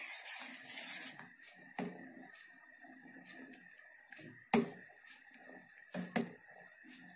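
Metal spoon stirring milk in a metal saucepan: quick scraping strokes against the pan for about the first second, then quieter stirring broken by a few sharp clinks of the spoon on the pan, the loudest about four and a half seconds in and two more near six seconds.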